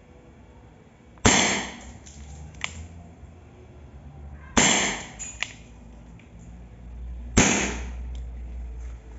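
Rossi 4.5 mm CO2 air revolver firing three shots about three seconds apart, each a sharp pop, with a fainter click following each of the first two.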